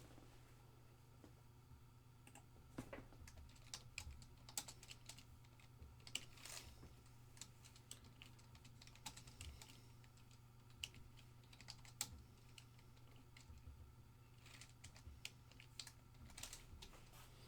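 Faint, irregular typing on a computer keyboard, with a steady low hum underneath.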